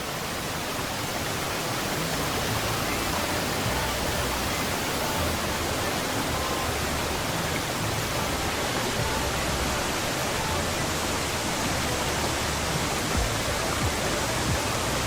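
A steady, even rushing noise with background music underneath.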